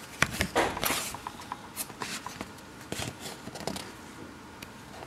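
A thin paperback picture book rustling and crinkling as it is handled, turned over and opened, with scattered soft paper clicks from the cover and pages.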